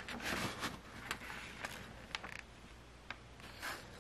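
Faint rustling and rubbing of a Teflon pressing sheet and plush fabric as they are handled, with a few light ticks about a second apart.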